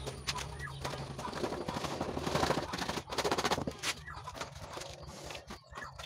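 Hand scraping and brushing debris across a concrete floor: scattered clicks and rasps, with two louder scraping strokes about two and three seconds in.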